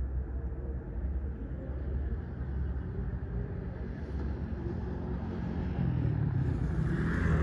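Motor vehicle engine running with a low rumble over street noise, growing louder near the end.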